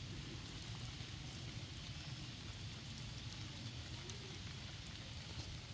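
Steady rain falling on a pool of water and wet paving, with faint scattered drop ticks.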